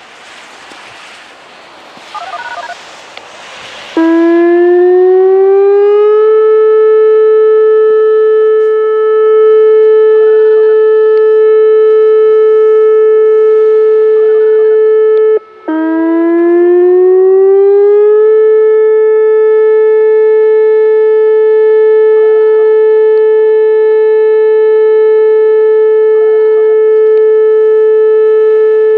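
Whelen WPS 2905 electronic outdoor warning siren sounding its steady 435 Hz alert tone, a test of the warning system. It starts abruptly about four seconds in, glides up from a lower pitch to the steady tone within about two seconds, and holds it. Around fifteen seconds in it cuts out for a moment, then glides up again and holds, heard over light wind noise on the microphone.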